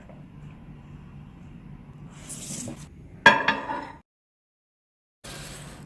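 A short hiss, then a sudden loud clink of a mug or utensil that rings briefly. The sound cuts out for about a second and another hiss follows.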